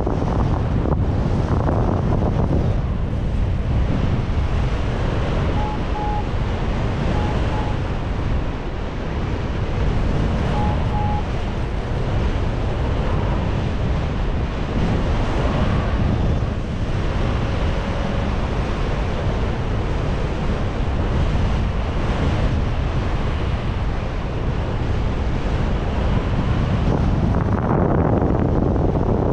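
Strong wind buffeting the microphone, a steady loud rushing and rumbling throughout. A few short beeps cut through in the first half, and a single lower one comes a little past the middle.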